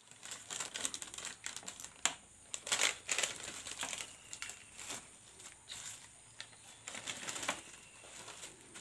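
Thin plastic crinkling and rustling as a black plastic bag and a foil snack packet are handled, in irregular bursts of crackles, loudest about three seconds in.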